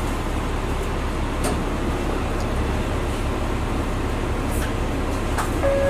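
Steady low rumble of an idling diesel train at the platform, with faint crowd noise in the background.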